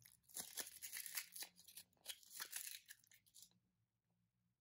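Foil wrapper being peeled and crinkled off a Kinder Surprise chocolate egg: a run of crackling, tearing rustles that stops about three and a half seconds in.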